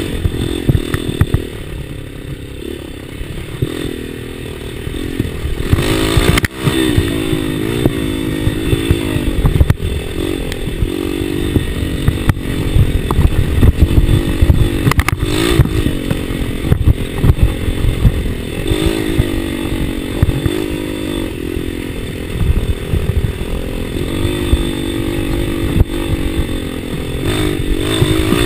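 Dirt bike engine revving up and down again and again as the bike is ridden hard over a rough trail, heard up close from on board, with a heavy low rumble and short knocks from the bumps.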